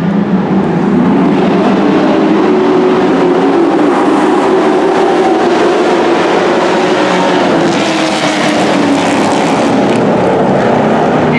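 Dirt-track race trucks' engines running at speed around the oval: a loud, steady drone whose pitch rises and falls.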